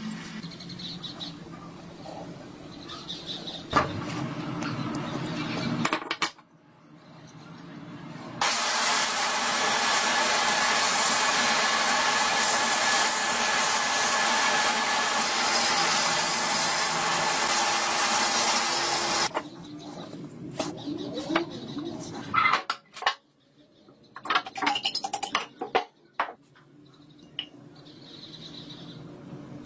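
Sandblaster nozzle blasting abrasive onto a wooden rifle stock inside a blast cabinet: a steady, loud hiss lasting about ten seconds in the middle. Before and after it come quieter knocks and clinks of items being handled.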